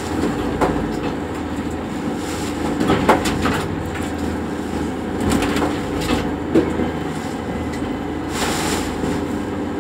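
Rescue lifeboat's engines droning steadily, heard from inside the wheelhouse, with sharp knocks and creaks as the boat pitches through breaking waves. A rush of spray washes over the boat about eight and a half seconds in.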